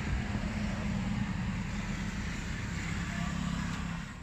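A vehicle engine running steadily: a continuous low rumble with a hum in it.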